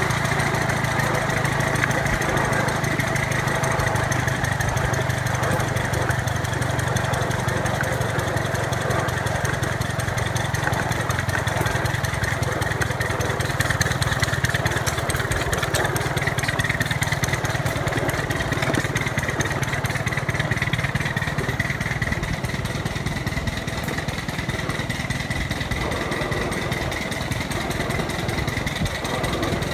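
Ride-on miniature railway train running along the track: a steady small-engine drone with the rumble of the wheels on the rails, easing off slightly near the end.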